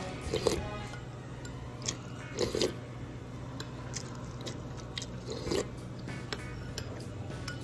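Eating sounds from a spoon at the mouth: three short wet bursts a few seconds apart, with a few light clicks between, over faint background music.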